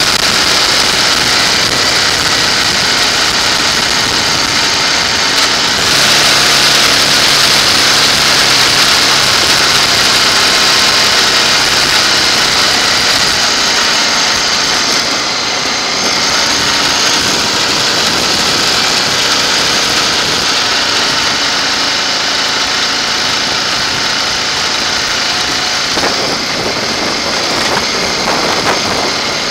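Motorcycle engine running at road speed under heavy wind rush on the microphone. The engine's note comes through most clearly for several seconds after about six seconds in.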